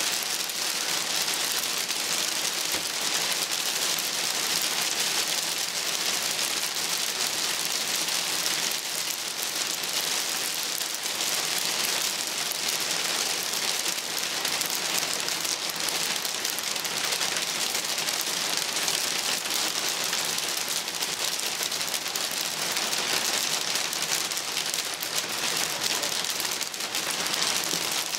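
Light hail falling steadily on a garden pond, rocks and leaves: a dense, even hiss of many small hits.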